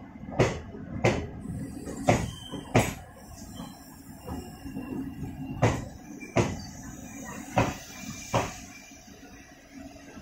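Wheels of a slow-moving passenger train knocking over a rail joint. The knocks come in pairs about three-quarters of a second apart as each bogie's two axles cross, with alternating short and long gaps between pairs, over a low rumble.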